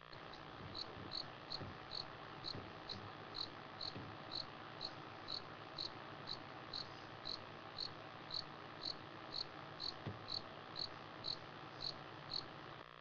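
A cricket chirping at night in an even, unbroken rhythm of short high chirps, about two a second, over a steady background hiss.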